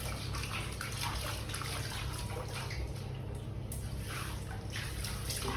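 Water splashing and sloshing in a small tub in irregular bursts, over a steady low hum.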